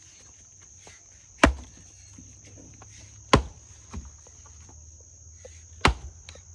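A small axe chopping firewood: three heavy strikes about two seconds apart, with a lighter knock between the second and third. A steady high cricket trill runs underneath.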